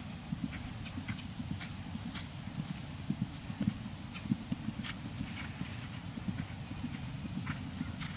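Horse's hoofbeats at the canter on turf: a steady run of dull thuds.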